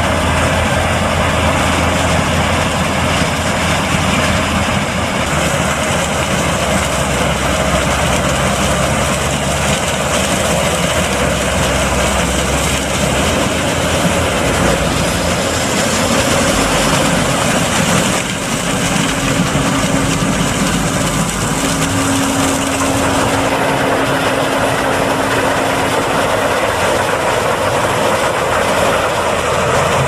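New Holland CR8.80 combine harvester running under load while harvesting corn: a loud, steady engine and machinery drone. The low engine tone changes about halfway through, when a tractor runs alongside as grain is augered into its trailer.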